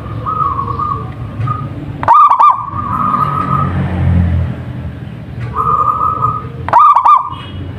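Zebra dove (perkutut) cooing. Two loud rolling coo phrases come about two and seven seconds in, with softer held coos between them.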